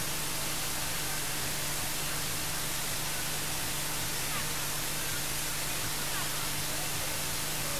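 Steady, even hiss like static, with a faint low hum underneath and a few faint, short chirp-like glides.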